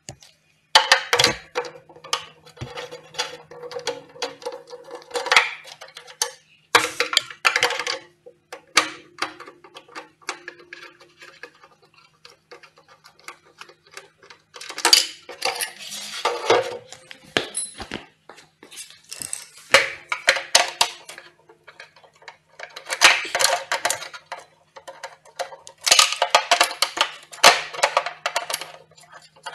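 Hand tools clinking and rattling against a CRT television's chassis in repeated bursts as a small loudspeaker is unscrewed and lifted out, over a faint low steady hum.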